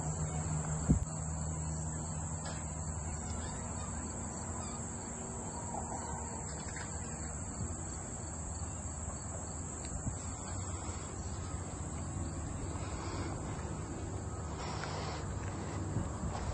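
Insects trilling in a steady, high-pitched outdoor chorus, with faint low rumble from wind or handling of the microphone.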